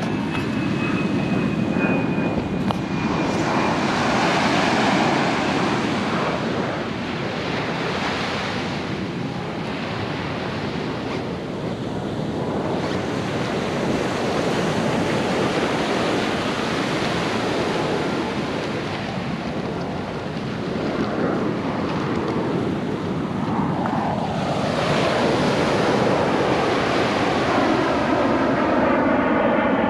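Ocean surf washing onto the beach in slow swells, with wind buffeting the microphone. Near the end the drone of an airplane's engine overhead comes in over the surf.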